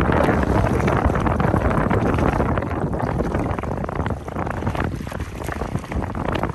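Strong wind buffeting the microphone: a loud, unsteady rush of noise that eases a little about four seconds in.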